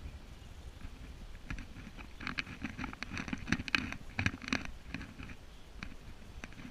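Footsteps through long grass: an irregular run of soft crunching and swishing steps, thickest in the middle.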